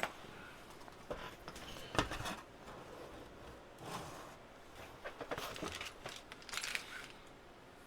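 Quiet room with a few scattered faint clicks and rustles.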